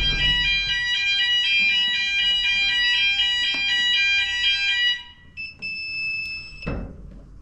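Fire alarm sounding during a routine weekly test: a loud, many-toned ringing that pulses rapidly and stops about five seconds in. A steadier single tone follows briefly and ends with a knock just before seven seconds.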